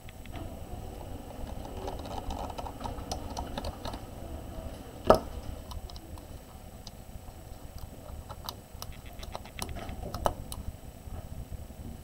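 Small plastic clicks and taps as fingers seat ribbon cables and snap shut the connector latches on a Lenovo 100e Chromebook motherboard. One sharper, louder click comes about five seconds in and another about ten seconds in.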